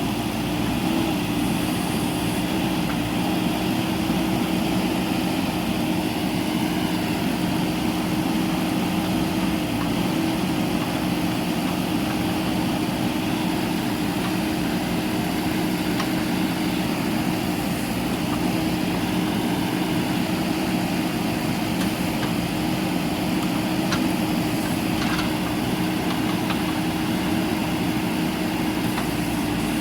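JCB backhoe loader's diesel engine running steadily, with a few faint clinks near the end.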